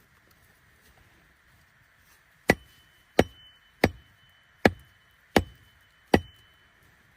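Wood being chopped: six sharp, evenly paced strikes about two-thirds of a second apart, starting about two and a half seconds in, over a faint steady hiss.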